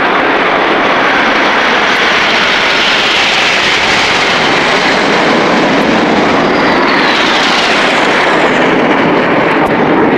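Formation of Red Arrows BAE Hawk T1 jets flying past with loud, continuous jet noise. A whine falls in pitch about seven seconds in as they pass.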